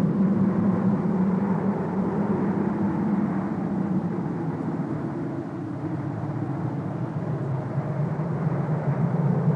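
Sound-effect wind: a low, steady rushing howl that eases a little in the middle and swells again near the end.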